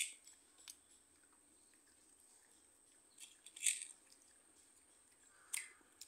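Candy-coated chocolates clicking and rattling against a small steel bowl as a child's hand picks through them: a few scattered sharp clicks, the loudest cluster a little past the middle.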